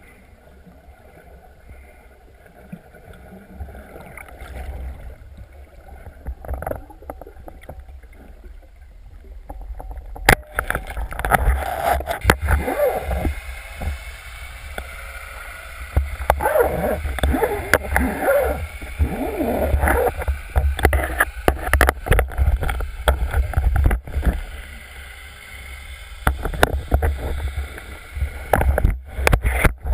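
Water sloshing and gurgling with many knocks and clicks over a steady low rumble, much louder and busier from about ten seconds in.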